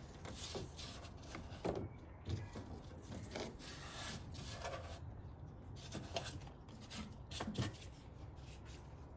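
Hard plastic engine-bay trim being handled and worked back into place by gloved hands: rubbing and rustling, with a few scattered light knocks and clicks.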